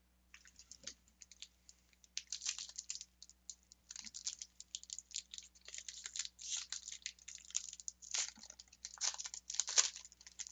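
Magic: The Gathering trading cards being handled: a steady run of quick rustles and flicks of card against card and packaging.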